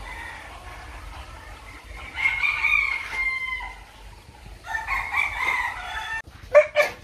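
Roosters crowing: one long crow about two seconds in and another about five seconds in, followed near the end by two short, sharp, loud sounds.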